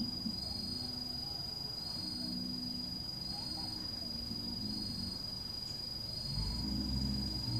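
Insect shrilling steadily at a high pitch, with a fainter pulse about every second and a half. Faint low tones sit underneath and grow louder about six seconds in.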